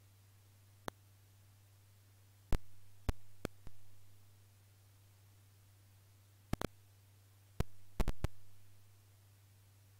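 Computer mouse button clicking: about a dozen sharp clicks, single and in quick clusters, over a low steady electrical hum.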